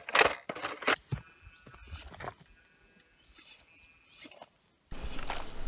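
A small 1/14-scale RC crawler knocking and clattering over rocks: a few sharp knocks in the first second and a half, then a faint whine, then almost nothing.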